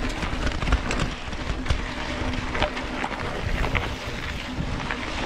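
Mountain bike ridden hard over a rough dirt track: wind on the microphone and tyre noise, with frequent short rattles and knocks from the bike.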